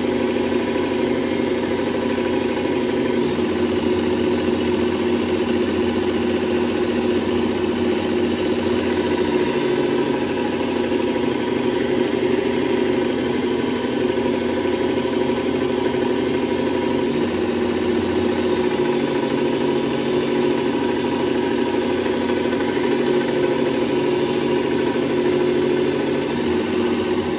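Work Sharp electric belt sharpener running steadily, its abrasive belt grinding the bevel of a steel paper-cutter blade held to it at a matching angle; it cuts off abruptly at the end.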